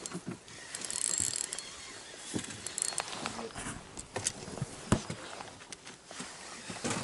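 Irregular mechanical clicking and creaking, with a few sharper knocks; the sharpest comes about five seconds in.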